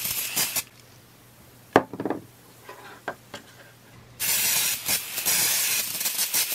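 Aerosol spray can hissing: a burst at the start, then an even spray of about two and a half seconds from a little past the middle. A sharp click and a few light ticks come in the gap between.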